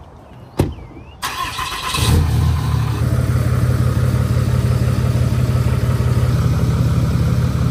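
A pickup door shuts with a thump, then a Ram Mega Cab's Cummins diesel cranks briefly and starts about two seconds in, settling into a steady idle.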